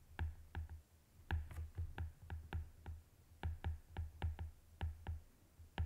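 Stylus tip tapping and clicking on a tablet's glass screen during handwriting: a quick, irregular series of sharp taps, about three a second, each with a dull low knock.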